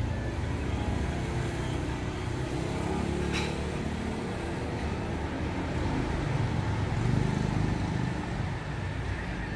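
Street traffic, mostly motor scooters running past, swelling louder around two thirds of the way through. A single sharp click a little over three seconds in.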